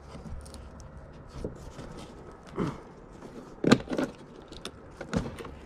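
Metal clasp and latches of a weathered violin case clicking and rattling as they are worked open by hand. There are a few scattered clicks, the loudest about three and a half seconds in.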